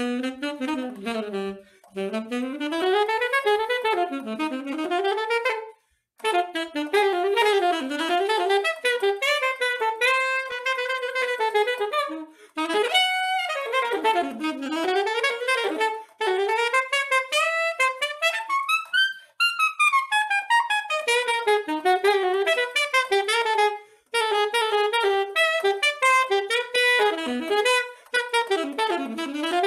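Solo saxophone playing fast, winding runs that climb and fall, the phrases broken by a few short pauses about two, six, twenty and twenty-four seconds in.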